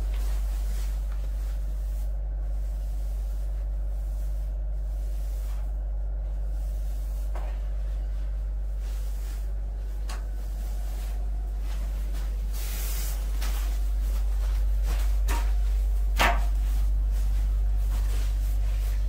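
A steady low machine hum runs throughout, with occasional short scrapes of a hand tool working wet sand-cement floor screed; the sharpest scrape comes near the end.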